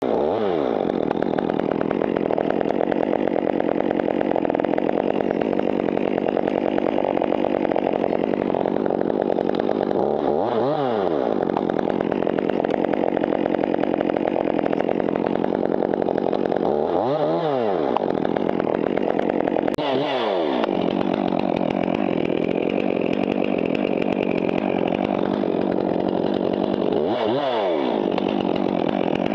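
Stihl MS 201 T two-stroke top-handle chainsaw running steadily while it hangs from the harness and is handled. Its tone sweeps briefly up and down about five times.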